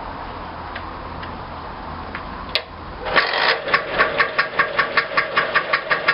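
Lambretta Li150 Special's single-cylinder two-stroke engine starting first time: a sharp click about two and a half seconds in, then the engine catches and settles into an idle with an even pulsing beat, about five pulses a second.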